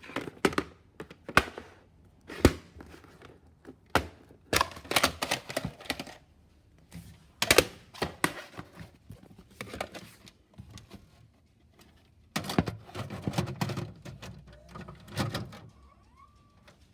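Videocassette recorder taking in a VHS tape: a run of irregular mechanical clicks and clunks, then a few seconds of low mechanism whirring with knocks as the tape loads.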